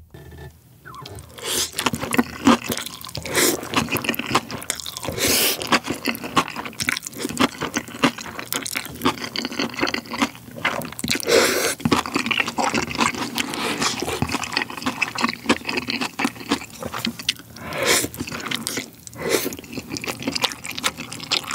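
Slurping and chewing a mouthful of black-bean instant noodles (Chapagetti) wrapped in spicy kimchi: wet, smacking mouth sounds with several louder slurps.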